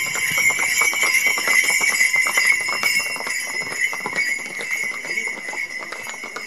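Bells on ridden horses' harnesses jingling steadily with the horses' stride. They grow fainter toward the end.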